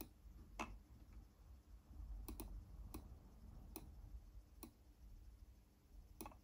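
Faint, irregular clicks, about nine, some in quick pairs, from input on a Märklin Central Station 3 digital control unit, over near silence.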